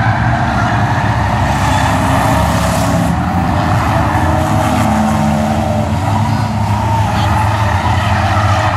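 A field of stock cars racing around a short oval, their engines running together in a steady, loud drone, with cars passing close by.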